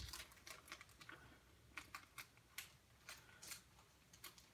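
Faint, irregular clicks and light rustling of plastic card holders and graded card slabs being handled on a table.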